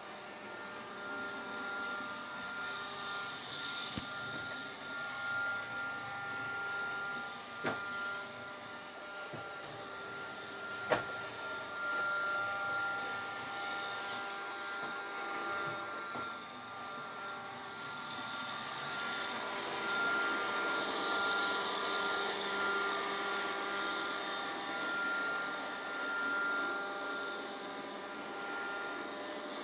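A steady machine-like hum, several held tones over a hiss, with three sharp clicks in the first half.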